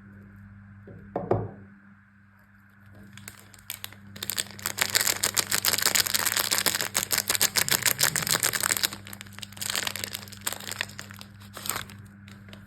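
A soap wrapper being torn open and crinkled: a dense crackling that runs for several seconds and comes back in shorter spells near the end. A single soft thump comes about a second in.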